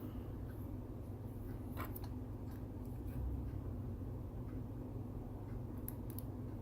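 A few faint, light clicks of small lock pins and parts being handled as the lock is taken apart, over a steady low hum.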